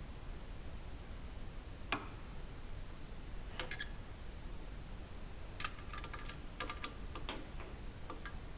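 Scattered light clicks and clinks of hand tools and metal hardware being handled during a dishwasher install, one about two seconds in, another a little later, then a quick cluster of several near the end.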